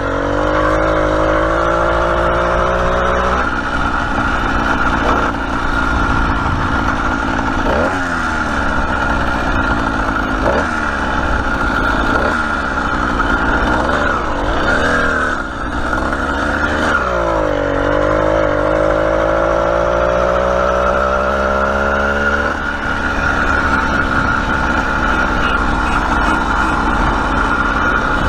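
Motorized bicycle's small engine running under way. Its pitch climbs as it speeds up at the start, blips up and down a few times, dips, then climbs steadily again through a long pull.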